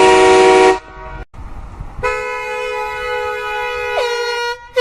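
Air horn blasts: a very loud held horn chord cuts off under a second in, then after a short gap a quieter, steady horn of two close-pitched tones sounds for about two and a half seconds, one tone sliding down just before it stops. A short, loud blast begins right at the end.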